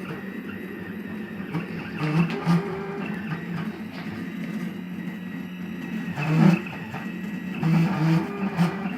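Stepper motors of a home-built CNC router whining as the machine moves its axes, with short rising and falling pitch sweeps about two seconds in, around six seconds in and again near eight seconds as the moves speed up and slow down.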